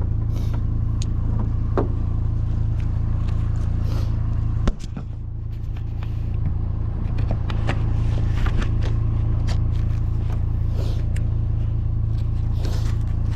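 Steady low rumble of an idling vehicle engine, dropping suddenly about five seconds in and slowly building back, with scattered clicks and scrapes of hands handling fishing gear.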